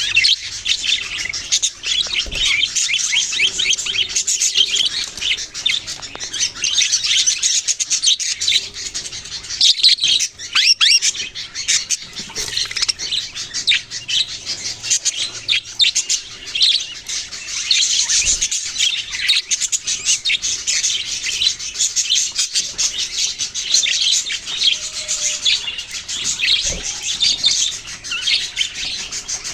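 A flock of budgerigars chirping and chattering together, many short high chirps overlapping without a break.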